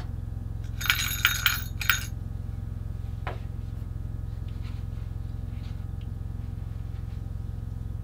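A short run of light, ringing clinks about a second in, then a single click a little later, from hands working in a fishing hole through the ice with a metal sleeve. A steady low hum sits under it all.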